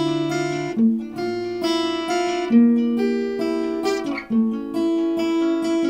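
Acoustic guitar strummed alone, a slow chord progression with the chords changing about every second.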